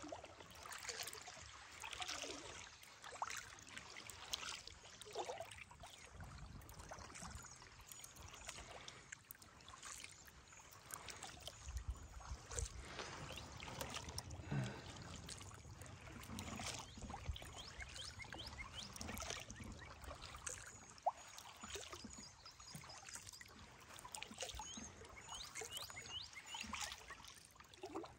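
Kayak paddle strokes dipping and dripping in the water, soft and irregular, with faint high bird chirps now and then.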